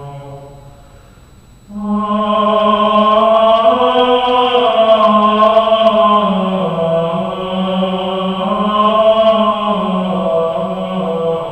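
Medieval plainchant played back through a loudspeaker: a low solo line trails off, then about two seconds in a louder, higher unison line of chant enters, sung by several voices, moving slowly up and down in pitch.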